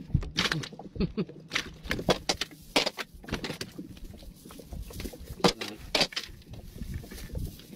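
A fishing net and freshly caught fish being handled by hand in a small boat: irregular rustling of the mesh with scattered sharp clicks and knocks, the loudest about five and a half seconds in.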